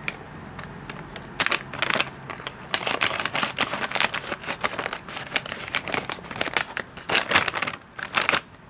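Scissors cutting open a crinkly snack packet, the wrapper crackling and rustling in quick irregular bursts from about a second and a half in until just before the end.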